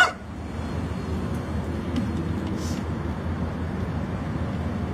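Steady low rumble of distant traffic, with one brief, sharp, high-pitched sound right at the start.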